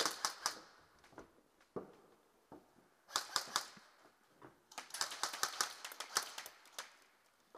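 Airsoft guns firing in rapid bursts of clicking shots: a short burst at the start, another about three seconds in, and a longer burst of about two seconds near the end, with a few single snaps in between.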